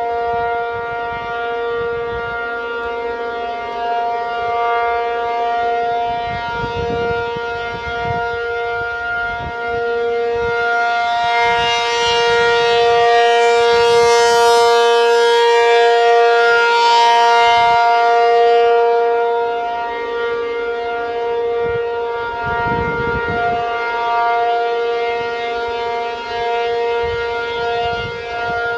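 ACA P-50 rotating outdoor warning siren sounding a steady tone for its monthly test. The sound grows louder and brighter midway as the rotating horn swings round to face the listener, then dulls again as it turns away.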